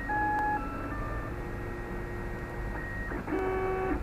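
FDM 3D printer printing: its stepper motors whine in short steady tones that jump to a new pitch with each move, several at once near the end. Under them runs a steady low hum.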